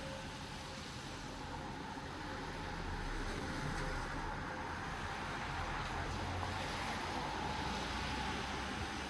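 Steady rain falling as an even hiss, swelling a little louder in the middle and easing near the end.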